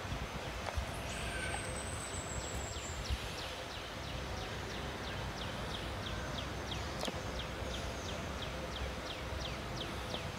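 Outdoor ambience with a wild creature calling. A long, high, slightly falling whistle begins about a second in, then a steady run of short, high, falling chirps follows at about three a second.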